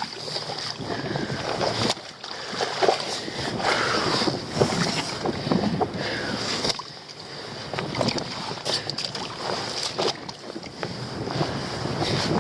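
Wind buffeting the microphone over seawater sloshing among shoreline rocks, with irregular knocks and scrapes all through.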